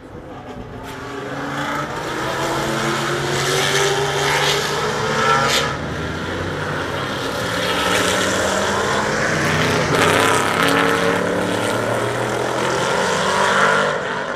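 Race car engines at high revs passing on a circuit, the pitch climbing through the gears with a sharp gear-change drop about five and a half seconds in, and more than one engine heard at once. The sound grows louder over the first few seconds as the cars come closer.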